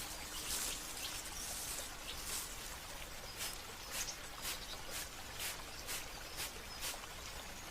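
Patio nature soundscape: a steady water hiss with a few faint bird chirps. From a little under halfway, a sharp high click repeats about twice a second.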